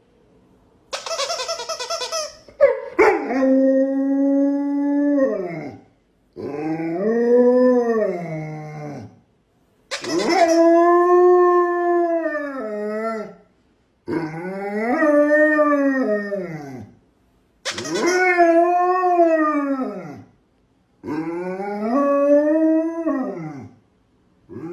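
A plush donut squeaky toy squeaks briefly about a second in, then a dog howls in reply: seven long howls of about three seconds each, every one rising and then falling in pitch, with short breaths between.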